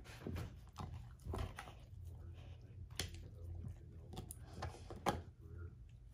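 Dog gnawing and chewing an air-dried, hair-on whole pig foot, with irregular crunches and chewing clicks. Two sharper cracks come about three seconds in and again about five seconds in.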